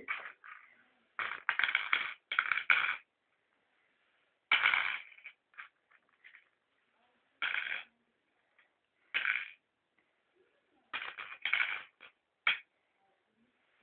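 Small mangala stones clattering as they are scooped up and dropped one after another into the pits of a mangala board. They come in short bursts of rapid clicks, separated by pauses of a second or two.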